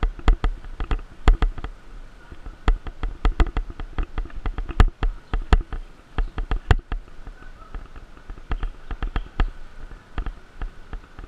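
Mountain bike riding over a bumpy dirt trail, heard from a handlebar-mounted camera: dense, irregular knocks and rattles of the bike and camera mount jolting over the ruts, over a low rumble.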